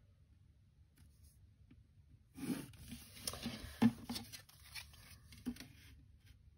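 A clear plastic 45-degree set square being lifted, slid and set down again on sheets of paper on a desk: about three and a half seconds of paper rustling with several light plastic knocks, the loudest near the middle.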